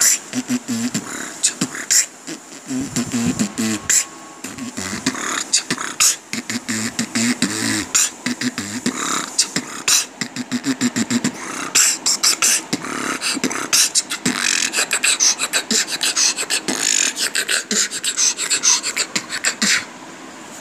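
A person beatboxing in a robotic, electric-current-like style: a fast run of sharp mouth clicks and hissing snares, with wavering hummed buzzes mostly in the first half.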